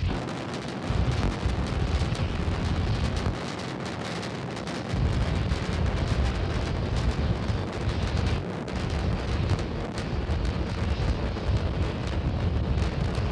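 SpaceX Starship SN8's three Raptor rocket engines firing during ascent: a rough, crackling low rumble with a noisy hiss, dipping briefly a couple of times.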